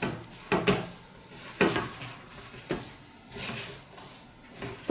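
Silicone spatula scraping and stirring crumbly flour-and-oil dough around a stainless steel mixing bowl, in repeated strokes roughly once a second, while the inner oil dough for curry puffs is being combined.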